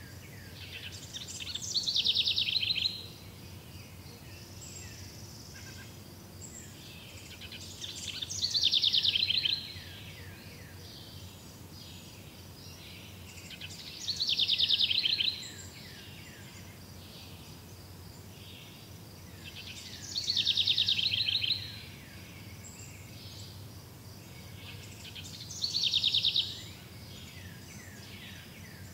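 A songbird repeats the same loud song phrase five times, about every six seconds. Each phrase is a quick series of downward-sweeping notes that runs into a fast, rattling trill. Steady outdoor background noise continues underneath.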